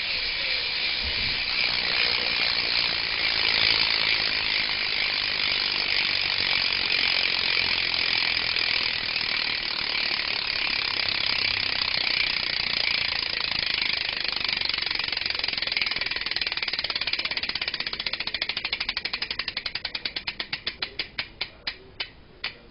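BMX rear hub's freewheel ratchet clicking as the wheel spins freely. A fast, even buzz of clicks starts suddenly, then slows into separate clicks that space out and stop as the wheel runs down.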